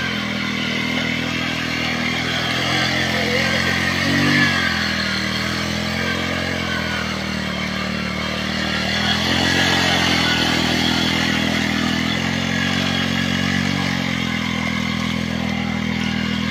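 Motorcycle engine running steadily under load as it drags a wooden ladder leveller through flooded paddy mud, the revs rising briefly twice, about four seconds in and again near ten seconds.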